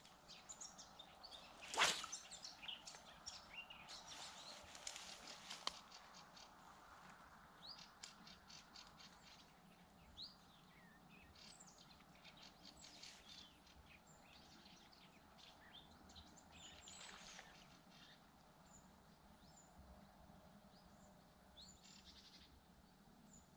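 Faint birds chirping and calling over quiet outdoor ambience, with one sharp click about two seconds in.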